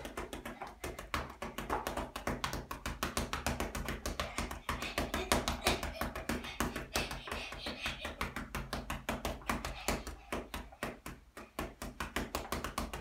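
Rapid, unbroken flurry of punches landing on a hanging Lonsdale heavy punch bag: a fast run of short thuds, several a second.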